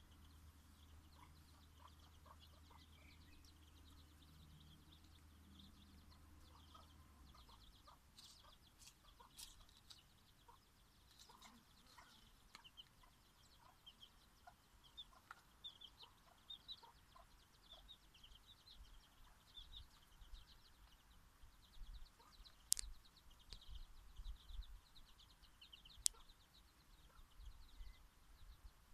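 Dutch bantam hen clucking softly while her bantam Araucana chicks peep over and over, all faint. Two sharp clicks stand out in the second half.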